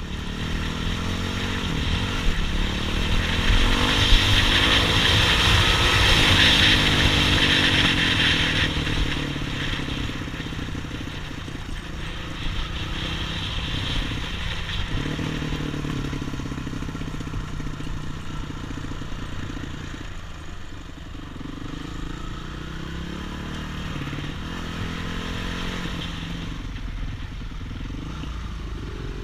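Off-road trail motorcycle engine revving up and down as the bike is ridden, loudest about four to eight seconds in.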